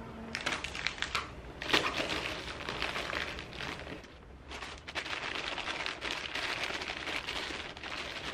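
Plastic packaging and wrapped items rustling and crinkling as they are handled and packed into a suitcase, with a brief lull about four seconds in.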